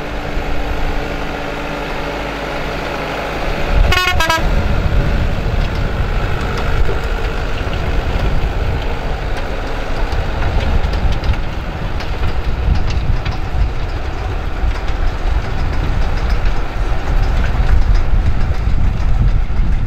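New Holland TD100D diesel tractor running under load as it pulls a rotary tiller through dry, cloddy soil. Its note is steady at first; a short crackle comes about four seconds in, after which the sound is louder and rougher with more low rumble.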